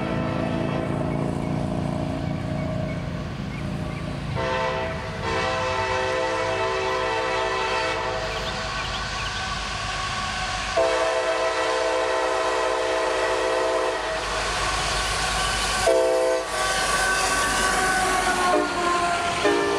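Diesel freight locomotive's air horn, led by a CSX ST70AH, sounding the grade-crossing signal: two long blasts, a short one, and a last long blast starting near the end. Under it the locomotive's engine grows louder as the train approaches, then falls in pitch as it passes, and the freight cars' wheels clatter on the rails.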